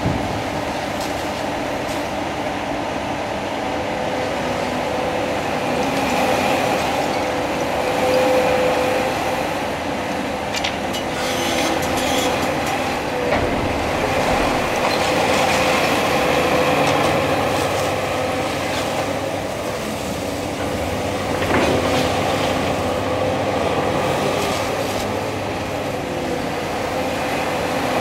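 Cat 336 excavator's diesel engine and hydraulics working under load as its demolition grapple pulls at and crunches through concrete and brick rubble, with a steady whine and scattered knocks and scrapes of debris.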